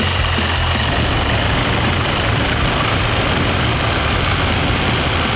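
Chainsaw engine running steadily at one pitch while cutting into a tough, frozen pineapple.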